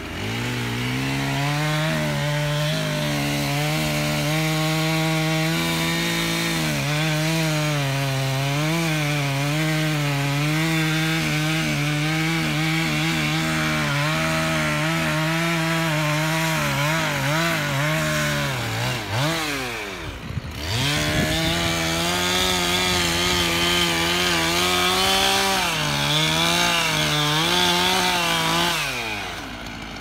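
Two-stroke chainsaw cutting through a tree trunk, its engine held at a steady high pitch under load. About two-thirds through the revs sag sharply and the saw almost stops, then it picks up and cuts on, falling back toward idle near the end.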